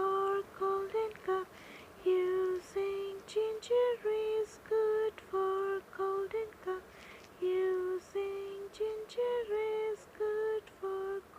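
A high singing voice sings a run of short syllables, each held on a steady note, in a simple repeating chant-like tune.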